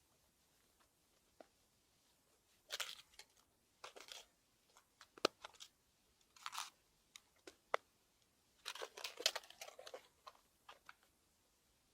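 Irregular rustling and crunching handling noises in short clusters, with several sharp clicks between them.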